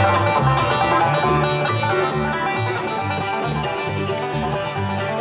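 Instrumental bluegrass music: plucked strings, banjo-like, over a steady bass beat pulsing about twice a second.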